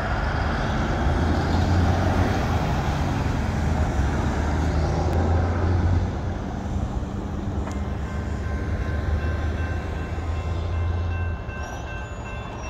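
Road traffic and wind noise at a railroad grade crossing, with a strong low rumble that drops away about eleven seconds in. From about eight seconds, faint steady high tones come in over it.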